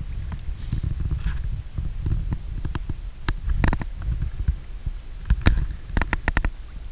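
Choppy low rumble of wind and small waves slapping against an inflatable boat's hull, with a few sharp knocks and taps from the boat and its fishing gear, a quick run of them near the end.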